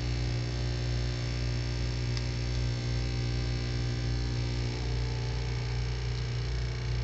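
Steady electrical hum: a strong low drone with several held tones above it and a faint hiss, the upper tones shifting in pitch about five seconds in.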